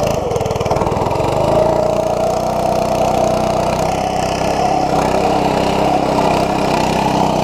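An 80cc mini bike's small four-stroke single-cylinder engine running under steady throttle as the bike rides through snow, its throttle still restricted so it stays slow. Its pitch rises a little about a second and a half in and then holds.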